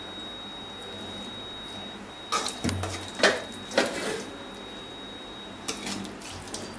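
Metal spoon clinking and scraping against a cooking pot as cooked chicken is spooned onto the rice: a few sharp clinks a few seconds in and a couple more near the end.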